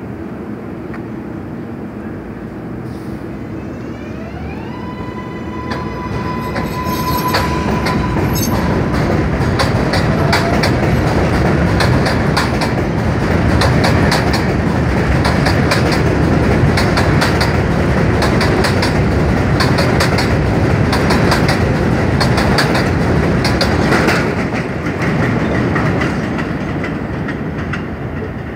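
R188 subway train pulling out. Its traction motors start with a rising, stepped whine that settles into a steady tone. The cars then roll past with a fast, loud clickety-clack of wheels over rail joints, which fades near the end as the last car leaves.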